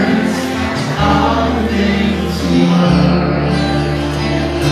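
Rock band playing live: electric bass holding low notes that change every second or two, under strummed acoustic guitar and singing.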